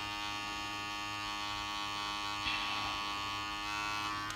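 Electric makeup brush spinner's small motor running with a steady hum, whirling a brush held above the bowl to spin the water out of its bristles.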